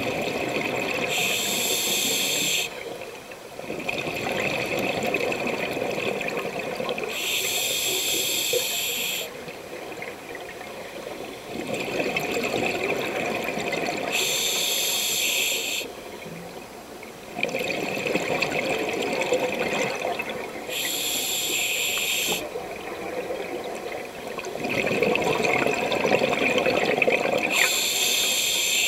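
Scuba diver breathing through a regulator underwater: five hissing inhalations about six seconds apart, each followed by a longer bubbling rush of exhaled air.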